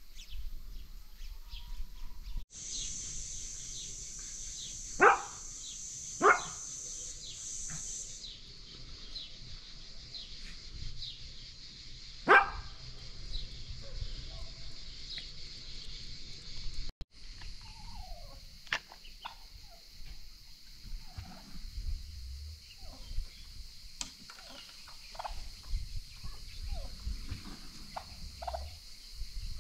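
Free-range chickens clucking and calling, with three loud, sharp calls about five, six and twelve seconds in, over a steady high background hiss.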